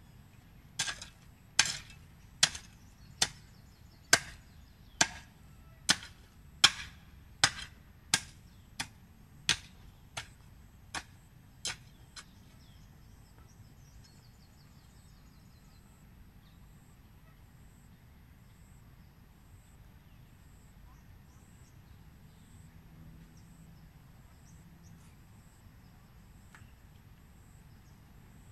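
A long-handled hoe chopping into the soil about fifteen times, a little under a second apart, the strokes growing fainter over the first twelve seconds, then only faint background.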